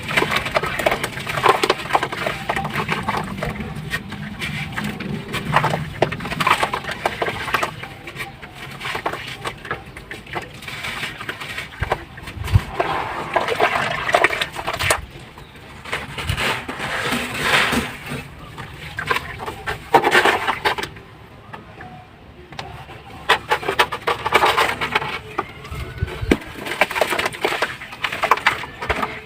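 Slabs of ash crumbling and breaking up in water: dense, irregular crackling and gritty crumbling that comes in louder spells every few seconds, with a brief lull about two-thirds of the way through.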